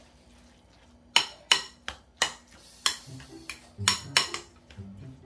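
Metal spoon clinking and scraping against a glass mixing bowl while stirring a thick mixture of minced chicken and vegetables, in a run of sharp clinks from about a second in. Soft background music notes come in about halfway.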